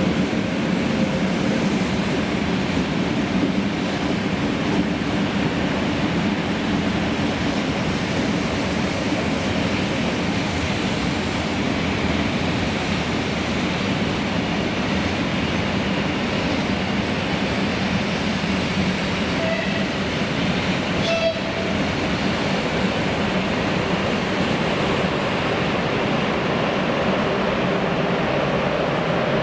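Express passenger train hauled by a ChS7 DC electric locomotive passing at speed, a steady heavy rumble of wheels on rail that does not let up. A few brief higher tones and a click come about twenty seconds in.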